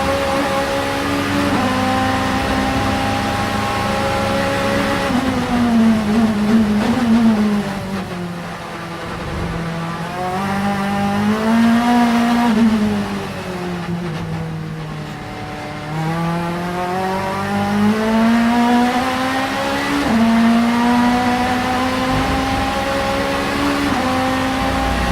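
Vauxhall Vectra Super Touring race car engine at high revs, with several quick gear-change steps in pitch. The pitch falls twice as the car slows, once about eight seconds in and again around thirteen to sixteen seconds, then climbs back through the gears with more upshifts near the end.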